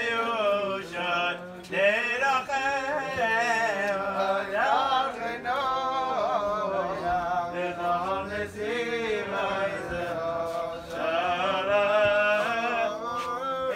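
Men chanting a Hebrew liturgical melody without instruments, a continuous flowing vocal line with no pause.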